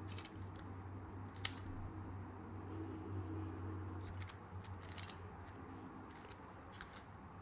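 Plastic 5x5x5 Rubik's cube (Professor's Cube) being turned quickly, its layers giving irregular clicks and clacks, the sharpest about one and a half seconds in, over a low steady hum.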